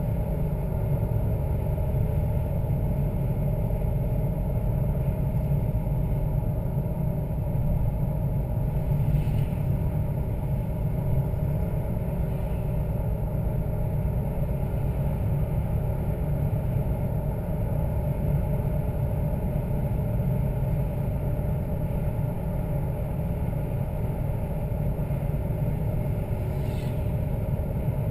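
Toyota Land Cruiser 80 Series straight-six engine running steadily, a low continuous rumble. Two faint, brief higher-pitched noises come through, about nine seconds in and near the end.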